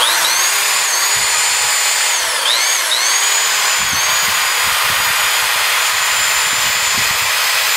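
Power drill running at full speed, driving a wind-up flashlight's crank through an adapter bit to charge it. Its high whine dips in pitch twice, about two and a half and three seconds in, then recovers.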